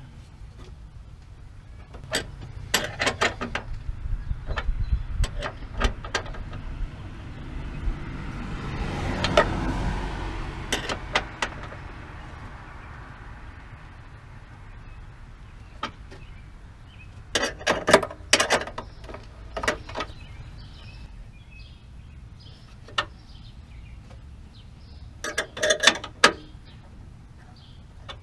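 Short bursts of metallic clicking and clanking from hand tools and bolts as a battery tray is fastened into a pickup's fender, in several clusters. About a third of the way in, a passing vehicle swells and fades.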